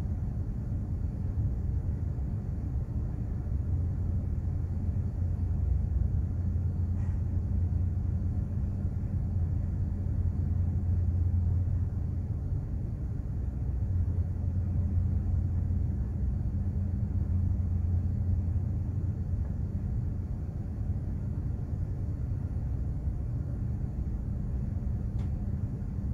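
Steady low rumble and hum of a container ship's engines and machinery heard on board, swelling and easing slightly.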